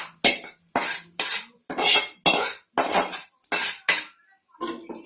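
Metal spoon scraping and knocking against a pan, about two strokes a second, scraping the fried onion seasoning out into the boiled tapioca. It stops about four seconds in.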